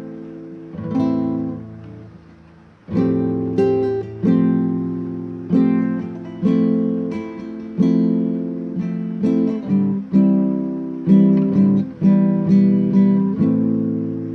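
Acoustic guitar playing a slow, calm sequence of strummed and arpeggiated chords. A chord rings out and fades about two seconds in, then fresh strums come at a steady pace.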